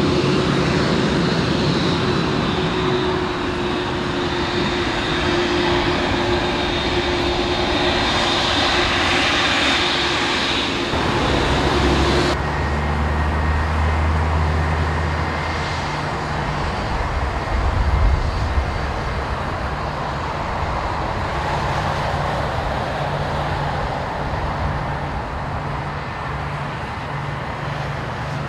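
Japan Airlines Boeing 787-8 Dreamliner's jet engines running. At first it is a steady whine with a high tone. About twelve seconds in it changes suddenly to a deeper, steady rumble as the airliner comes in on final approach to land.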